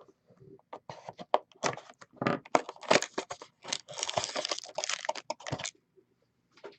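Packaging being torn open and crinkled by hand: rapid crackling rips with sharp clicks as a sealed hockey card box and its wrapper are opened, stopping near the end.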